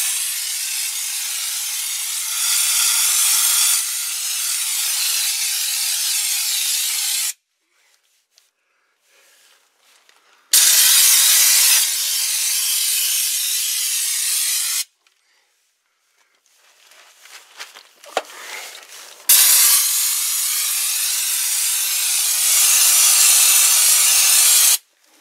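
Air-powered undercoating gun spraying bar and chain oil onto a truck's frame, a steady hiss of air and oil mist in three long trigger pulls with short silent pauses between them.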